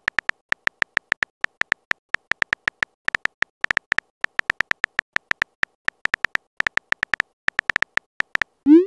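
Phone keyboard key-tap sounds: a fast, irregular run of short beeping clicks with a high tone, one per typed character, several a second. Near the end a rising swoop begins, the message-sent sound.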